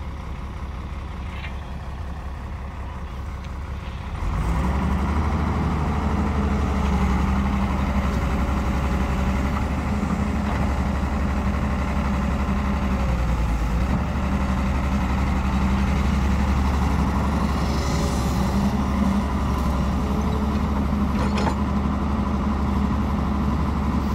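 Diesel engine of a Doosan wheeled excavator running steadily, then rising to a louder working note about four seconds in as the machine swings and loads soil into a tractor trolley.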